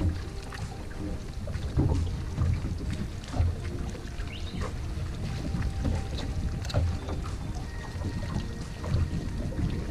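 Small waves slapping against an aluminium boat hull, heard as irregular low thumps every second or so over wind noise on the microphone.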